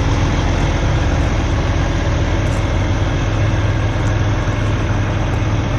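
Heavy diesel truck engine idling steadily, a deep even hum.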